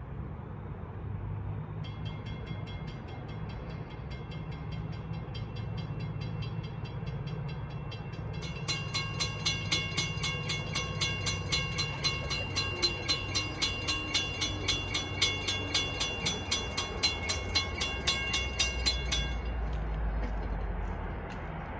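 Railroad grade-crossing warning bells ringing at about two strikes a second: one starts faintly about two seconds in, a louder one joins about eight seconds in, and both stop about three seconds before the end. Near the end the low rumble of an approaching train grows.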